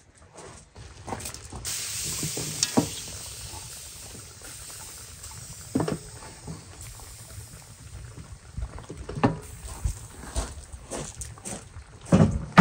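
Sliced fruit tipped and scraped off a wooden cutting board into a pot of simmering lamb. A hiss rises as the fruit hits the hot liquid and slowly fades, with scattered knocks and scrapes of the board and falling slices and a louder clatter near the end.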